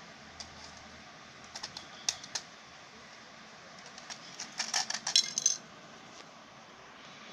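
Hard plastic clicks and clatter as a toy RC car and its remote control are handled and set down on a tiled floor: a few sharp clicks about two seconds in, then a quick run of clattering clicks with a light ringing around five seconds in.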